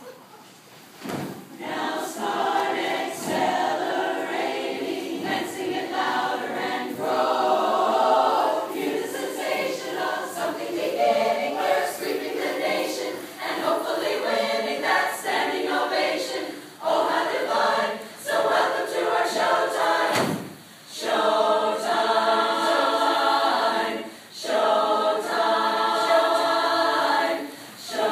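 Women's chorus singing together in sustained phrases, with short breaks between phrases in the second half.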